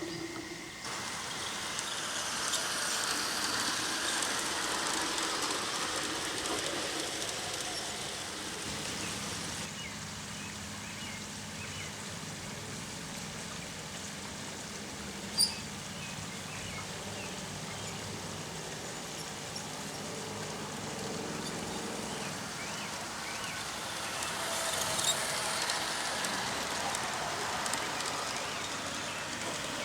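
G-scale model train running along garden railway track: a steady hiss and rumble of wheels on rail that grows louder near the start and again near the end, with one sharp click about halfway through.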